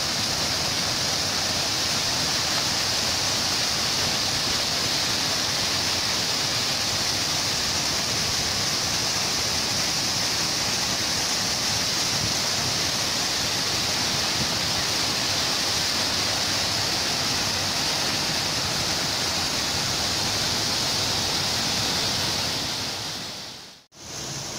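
Water pouring down the spillway and over the weir of an old stone masonry dam: a steady rushing hiss. It fades and cuts out briefly near the end, then comes back quieter.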